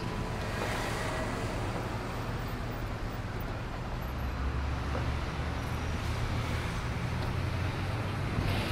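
Steady city traffic noise, the hum of passing cars, with a low rumble that swells about halfway through.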